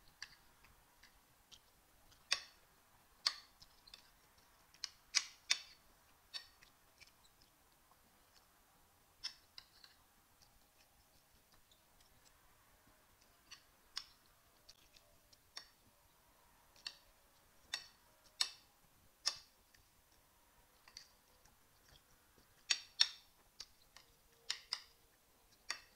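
Eating sounds: scattered, irregular sharp clicks of a metal spoon against a ceramic plate and of the mouth while chewing rice and beans, about one every second. The loudest come in a quick cluster near the end.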